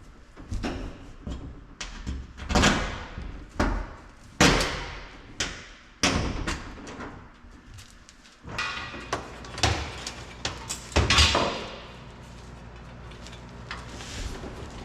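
Sheet-metal cab panels being handled and fitted: irregular metallic bangs and clanks, some ringing briefly. About eight seconds in, a steady low hum starts underneath.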